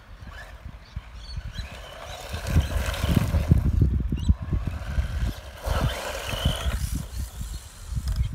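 Wind buffeting the microphone in heavy, irregular low gusts that grow stronger about two and a half seconds in, over the fainter sound of an electric RC buggy driving on gravel.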